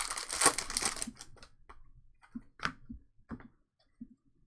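Trading-card pack wrapper crinkling for about the first second, then scattered light clicks and taps as the cards are handled and flipped through.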